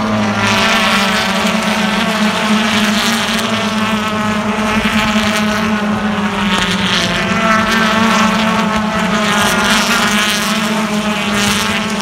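A pack of BTCC touring cars, each with a 2-litre turbocharged four-cylinder engine, racing past close by, their engine notes overlapping and rising and falling as they come through the corner. A steady low hum runs underneath.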